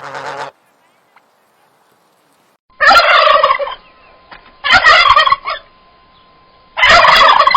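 Turkey gobbling: the tail end of one gobble at the start, then three separate loud gobbles, each just under a second long, about two seconds apart.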